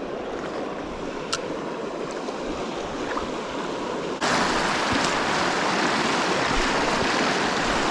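Fast-moving, storm-swollen creek water rushing, a steady noise that gets louder about four seconds in.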